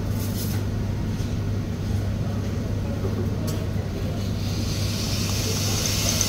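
A steady low hum under an even background noise, with a high hiss building near the end.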